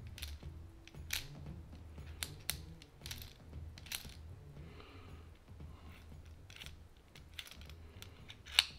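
Light, irregular clicks and taps of a solid brass and stainless-steel puzzle barrel being turned and handled in the fingers, with a sharper click near the end.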